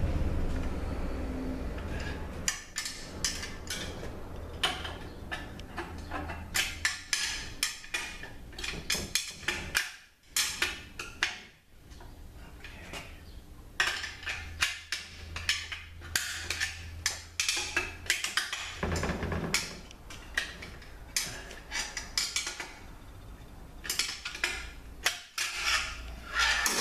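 Metal clicking, tapping and scraping inside an automatic transmission case as a heavy snap ring is worked out of its groove: sharp, irregular clicks coming in clusters. A steady low hum runs underneath.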